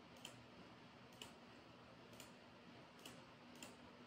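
Faint clicks of a computer mouse's left button, about five, spaced unevenly, over near-silent room tone.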